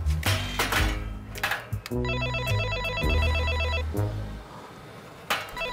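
Door intercom panel giving its trilling electronic call tone: a ring of about two seconds starting about two seconds in, and a second ring starting near the end. Under it runs background music with a heavy bass beat, with a few sharp hits in the first second and a half.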